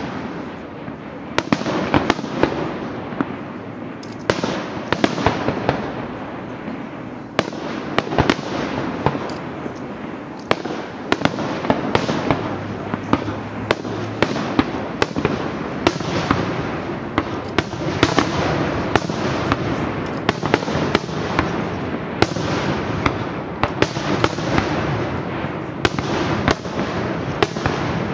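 Fireworks display: many aerial shells bursting with sharp bangs in quick, irregular succession over a continuous dense din of further bursts.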